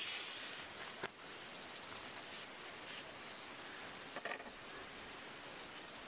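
Steady high-pitched drone of insects (crickets), with a few light knocks and scrapes from a bamboo stake being worked into garden soil, one about a second in and a cluster around four seconds in.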